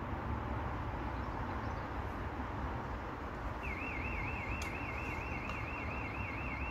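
A steady low rumble, with a high, evenly warbling alarm tone, wavering up and down about five times a second, starting about halfway through.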